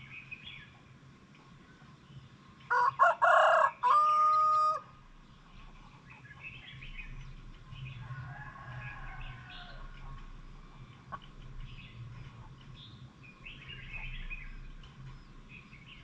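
A rooster crows once, about three seconds in: a few choppy notes and then a long held final note. Small birds chirp faintly around it.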